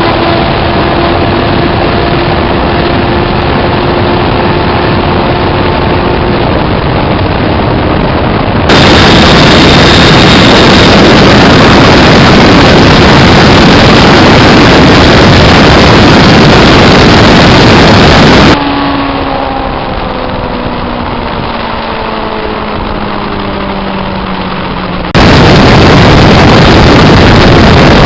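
500 cc parallel-twin motorcycle engine running in several cut-together stretches. It holds a steady note at first, gives way about nine seconds in to loud rushing noise, then falls in pitch as the engine slows, and the loud rushing returns near the end.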